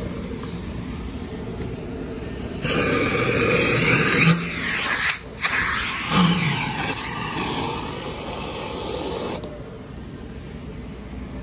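Self-serve car wash vacuum running with a steady rush of air. It gets louder and brighter for several seconds in the middle, with a brief dip about five seconds in.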